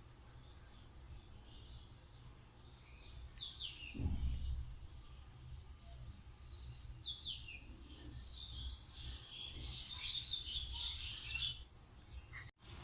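A pet bird chirping: two short runs of falling chirps, then a denser burst of high chatter from about 8 seconds that stops suddenly near the end. A low thump sounds about 4 seconds in.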